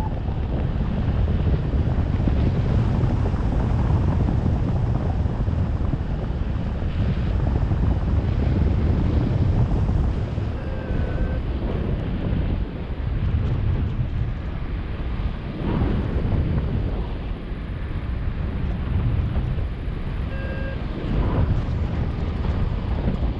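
Wind buffeting the microphone: a steady low rumble with no speech.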